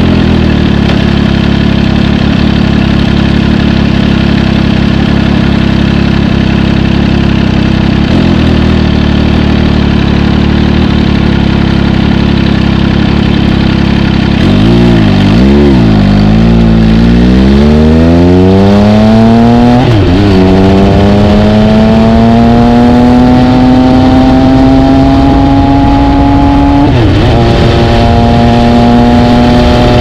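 2019 MV Agusta Brutale RC motorcycle engine through an SC Project titanium exhaust. It runs at a steady cruise, then the throttle is rolled on and off a few times. It then accelerates, the pitch climbing in two long pulls that each end in a sudden drop at an upshift, and settles to a steady note near the end.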